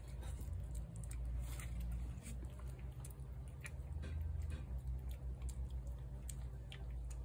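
A cat crunching dry kibble from a saucer: scattered small crunches and clicks over a steady low hum.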